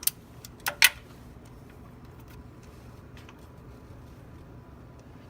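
Three sharp metallic clicks in the first second as a wrench works the oil drain plug tight, then only a faint steady low hum.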